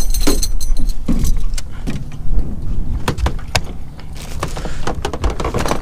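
Fishing gear knocking and clattering against an aluminum boat hull: a scattered run of sharp knocks and clicks over a steady low rumble.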